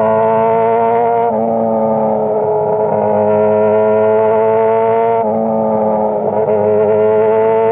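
Sport bike's inline-four engine pulling hard through the gears, its pitch climbing steadily and dropping sharply at two upshifts, about a second in and about five seconds in.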